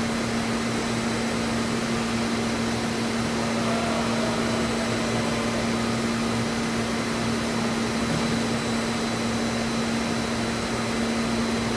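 Studer S33 CNC universal cylindrical grinder running an internal grinding cycle: a steady hum with an even hiss.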